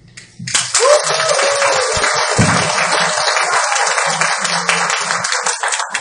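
Small audience applauding the end of a guzheng performance. The clapping starts suddenly about half a second in and keeps on steadily, with a brief voice calling out about a second in.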